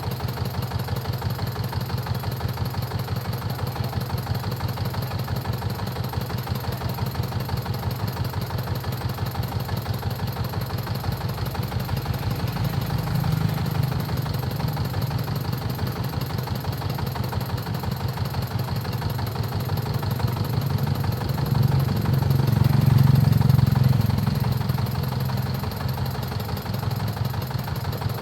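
Diesel engine of a corn threshing machine running steadily with an even rapid firing pulse. It swells louder twice, briefly about halfway through and more strongly for a few seconds near the three-quarter mark.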